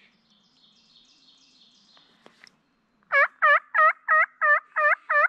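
Eight loud, evenly spaced turkey yelps from a hunter's turkey call, about three a second, starting about three seconds in. Faint songbird twittering comes before them.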